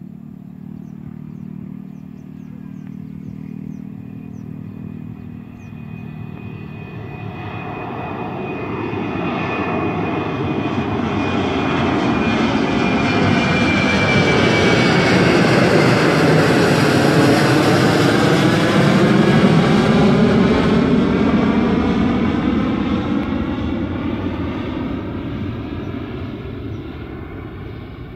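Boeing 737-800's CFM56-7B turbofan engines at takeoff thrust. The jet noise grows steadily louder as the airliner rolls and climbs toward the listener, with a high whine that slides down in pitch as it passes. It is loudest past the middle, then fades as the jet climbs away.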